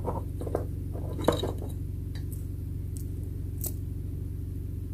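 A few faint, scattered clicks of tiny plastic Sylvanian Families mugs being unhooked from a miniature toy kitchen dresser, over a steady low hum.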